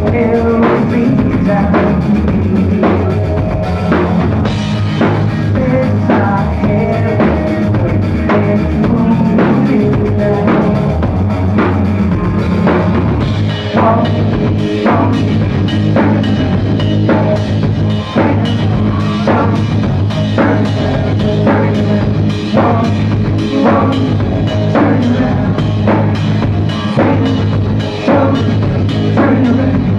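A live rock band playing: a drum kit keeping a steady beat under electric guitar, bass guitar and keyboard.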